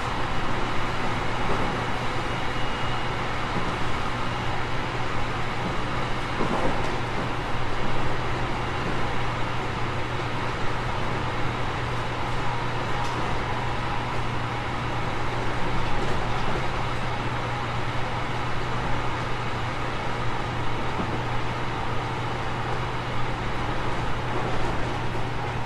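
JR Kyushu 813 series 200-subseries electric multiple unit, with Toshiba GTO VVVF traction equipment, running at a steady speed, heard from inside the car: a steady rumble of wheels on rail with a constant low hum.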